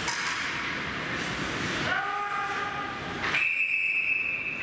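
A hockey official's whistle blown in one long, steady, high blast starting about three seconds in, over the hum and chatter of the ice rink. Just before it a short call, like a shout, rises and holds for about a second.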